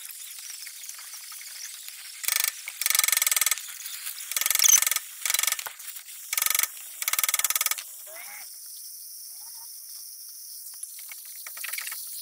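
A torch hissing steadily against a rusted wheel hub, while an air hammer fires in six short bursts, each under a second, between about two and eight seconds in. The hammering is being used to shock a seized, corroded axle loose while a hydraulic puller presses on it.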